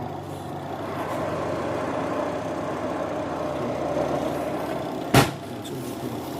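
LG washing machine's spin dryer running steadily after repair, a whirring hum that builds about a second in. About five seconds in there is a single sharp knock, the loudest sound.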